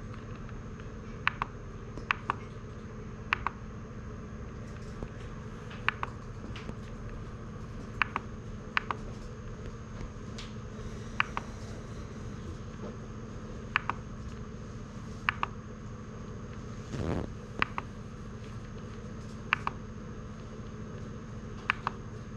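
Rotary encoder knob clicking as it is turned and pressed to step through a controller's menu: a sharp click or quick pair of clicks every second or two, over a steady low hum.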